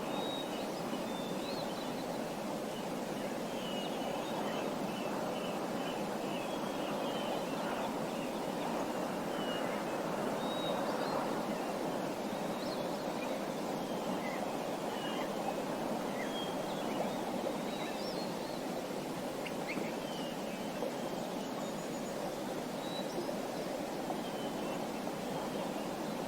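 Small songbirds chirping in short, scattered calls over a steady rushing background noise.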